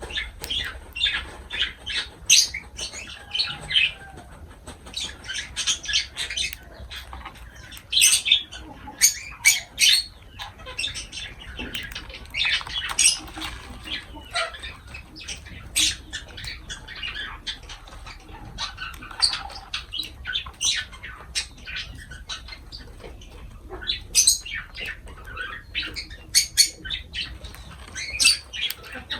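Lovebirds chirping and squawking: a constant stream of short, sharp, high-pitched calls, several a second, with louder shrieks now and then.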